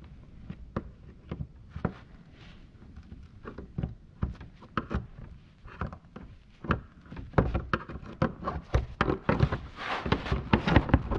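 Irregular knocks, clicks and rattles of hands handling parts and gear, sparse at first and busier in the last few seconds.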